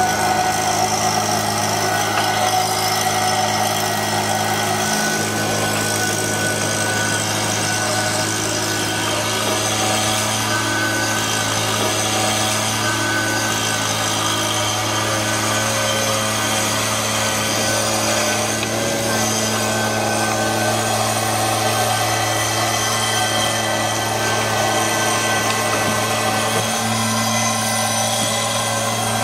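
Gas-powered handheld leaf blower running steadily at a constant throttle, blowing debris.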